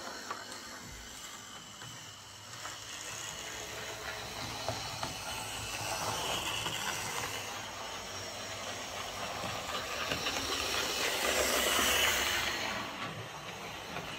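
Airfix Class 14xx OO gauge model tank locomotive running on model track: its small DC motor, gears and wheels make a quite noisy, hissing rattle that swells and fades, loudest about twelve seconds in.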